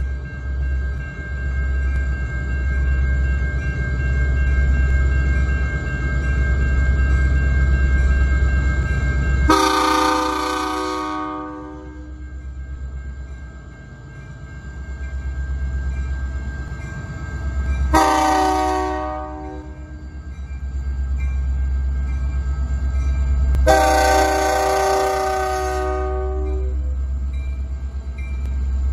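The air horn on an approaching CN EMD SD60 diesel locomotive sounds three chord blasts for a grade crossing: long, then short, then long. Under the horn runs the low rumble of the locomotives' diesel engines, and a crossing bell rings faintly.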